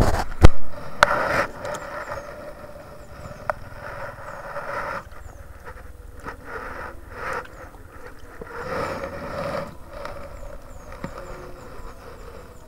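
Close handling noise: uneven rustling and scraping against the microphone as fishing tackle and bait are handled, with two sharp knocks right at the start.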